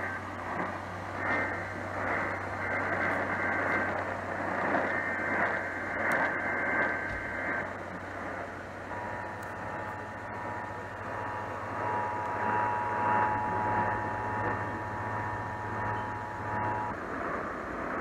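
Emergency Alert System test heard over an AM radio's speaker: the high-pitched data bursts of the EAS header for about the first seven seconds, then the steady two-tone EAS attention signal held for about eight seconds before cutting off near the end, all under AM static and a low hum.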